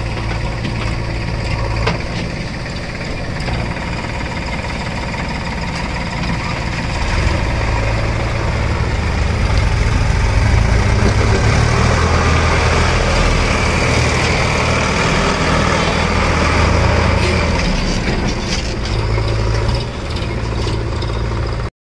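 Diesel engines of a Sonalika DI 50 tractor and a JCB 3DX backhoe loader running steadily. The tractor's engine is working under load as it pulls a trolley heaped with earth. The engine sound grows louder about seven seconds in and eases near the end.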